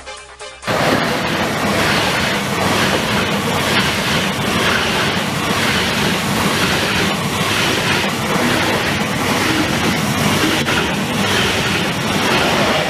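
High-speed train running on its rails: a loud, steady rushing with a regular pulse about every two-thirds of a second, cutting in abruptly just under a second in as electronic music stops.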